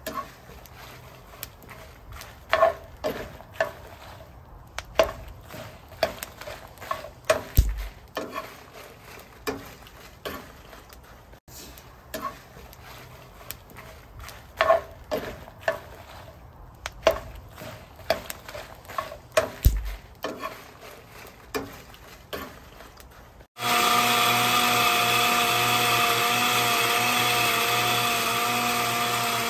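Scattered knocks and clicks of kitchen items being handled, then about 23 seconds in a small electric motor switches on and runs steadily with a loud, slightly wavering hum.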